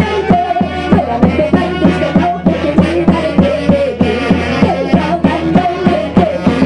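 Live band music: a quick, steady drum beat of about four beats a second under a bass line and a melody.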